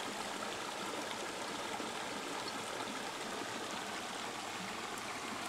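A shallow stream running over rocks: a steady rush of water.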